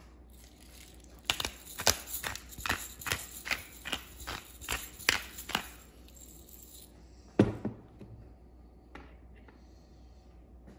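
Pepper mill being twisted over meat, grinding in a run of regular crunching clicks about two and a half a second for about five seconds. A single loud knock follows about seven seconds in.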